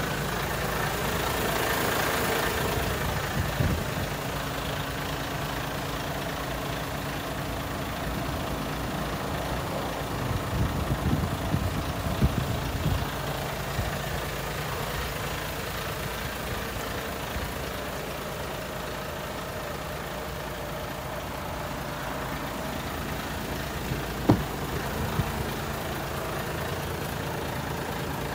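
Iveco Stralis 460's six-cylinder Euro 6 diesel engine idling steadily, with a few light knocks partway through and one sharp click near the end.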